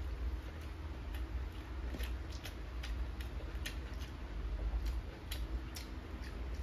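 Close-up eating sounds: a person chewing with irregular sharp mouth clicks and smacks, several a second, over a steady low rumble.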